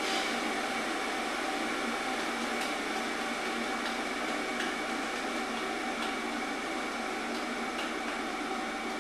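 Steady hiss with a faint, even hum and a few very faint ticks: background room noise with nothing else going on.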